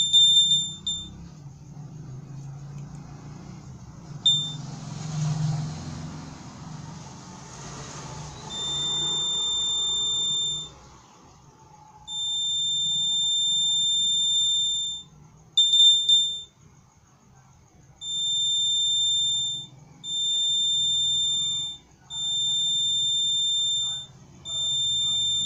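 Piezo buzzer of a homemade water level alarm sounding a steady high-pitched tone that switches on and off about nine times, in bursts from a fraction of a second to about three seconds. Each burst is the circuit being closed as the probe wires touch and dip into the water in the steel bowl.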